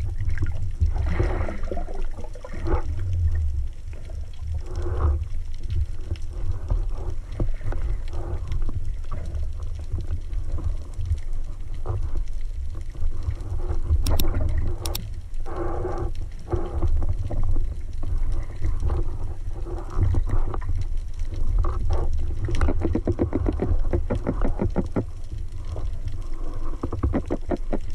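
Underwater water noise heard through a camera housing on a speargun: a continuous low rumble with irregular surges as the diver moves, and two sharp clicks about halfway through.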